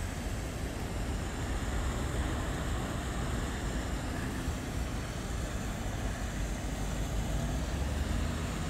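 Steady low rumble with an even hiss above it, unbroken outdoor noise.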